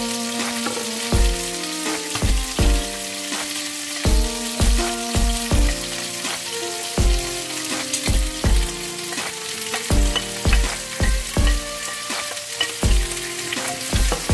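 Chicken thighs sizzling steadily as they fry in a frying pan. Partway through, chopped onion and tomato are tipped in and stirred with a spatula. Background music with a steady beat plays over it, and its beats are the loudest sounds.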